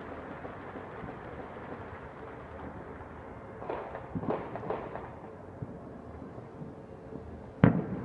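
Scattered New Year's Eve bangs from celebratory gunfire and fireworks across the neighbourhood: a quick cluster of about four distant pops just before halfway, then one loud, sharp bang with a short echo near the end, over a steady hum of city background noise.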